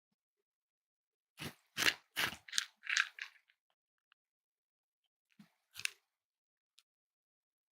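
A cat crunching its food, a quick run of about six crunches, then a pause and two more near the end.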